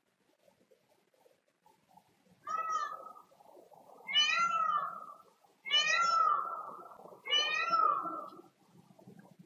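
An animal calling four times, about one and a half seconds apart; each call lasts about a second and falls slightly in pitch at its end.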